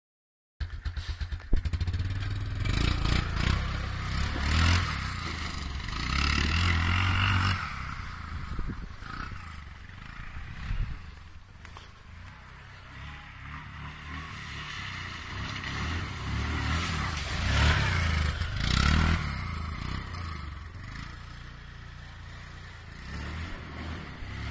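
Yamaha Wolverine 450 quad's single-cylinder four-stroke engine running and revving as it is ridden through mud. It rises and falls several times, loudest in two surges, one early and one past the middle.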